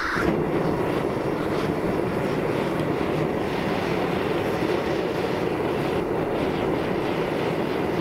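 Propane burner firing into an aircrete furnace: the gas flame lights right at the start and then burns with a steady, even low rush. The flame is swirling around the furnace bore with the crucible out.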